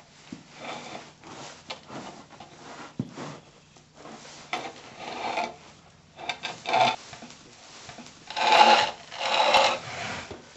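Straw rustling and a toppled wooden chair scraping as someone tied to it with rope struggles, in irregular bursts of scuffling. The two loudest come near the end.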